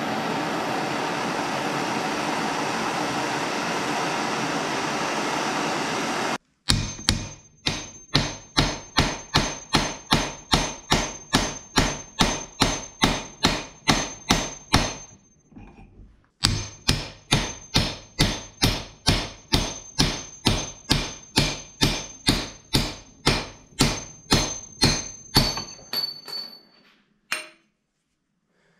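A MAP gas torch hisses steadily for about six seconds, then a hammer strikes a steel punch at about three blows a second with a metallic ring. The blows come in two long runs with a short pause between them and a few last hits near the end, driving out a seized clutch pedal shaft.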